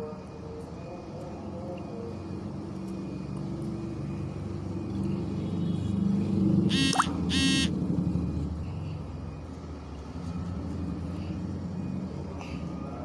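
A vehicle passing by: a low rumble that swells to a peak about halfway through and then fades, with two short horn beeps at its loudest.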